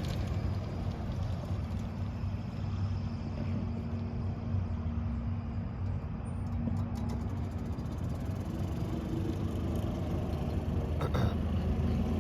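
A vehicle's motor running with a steady low hum, and a sharp click about eleven seconds in.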